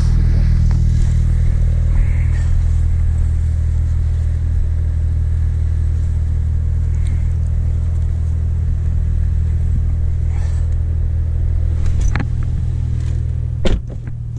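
Porsche 911 Turbo S twin-turbo flat-six idling steadily with a low, even drone. A sharp knock sounds about two seconds before the end, and a louder one just after it.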